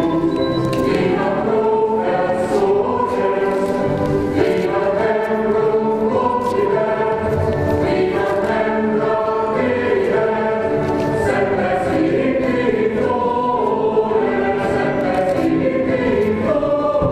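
A choir singing, many voices holding long notes together and moving from chord to chord about every second.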